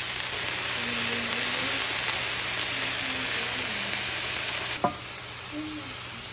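Diced peppers, carrots and mushrooms sizzling steadily in a frying pan while a wooden spoon stirs them. About five seconds in there is a click and the sizzle goes on more quietly.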